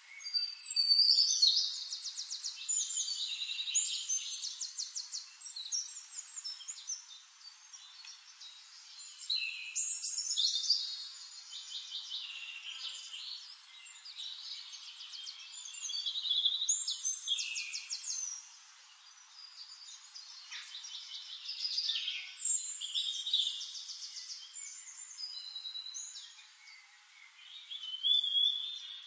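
Songbirds singing: high, rapid trills and chirped phrases, a louder burst of song about every six seconds with softer chirping in between.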